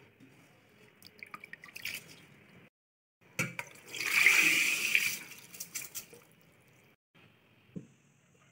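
A hand swishes soaking rice in a bowl of water, with small splashes. A few seconds in, the water is poured out through a stainless steel colander, splashing loudest for about a second before trailing off, and a small knock follows near the end.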